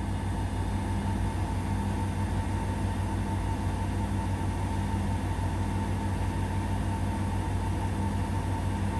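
Indesit BWE101683 front-loading washing machine in its spin cycle: a steady motor hum with a thin high whine and a fast low pulsing from the turning drum.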